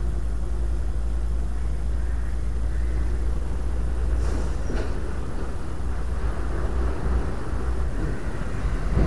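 Steady low outdoor rumble with most of its weight deep in the bass, typical of wind buffeting the microphone at open water.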